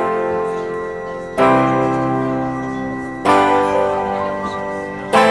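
Background music: strummed guitar chords, a new chord struck three times about every two seconds and each left to ring and fade.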